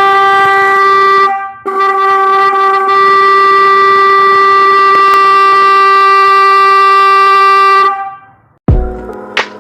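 Denso snail-type electric horn sounding as one steady tone: a short blast, a brief break, then a long blast of about six seconds that fades out. Music begins with a thump near the end.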